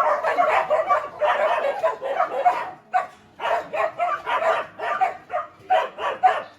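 Dogs barking and yapping, a dense run of barks for about the first three seconds, then separate short barks roughly two or three a second.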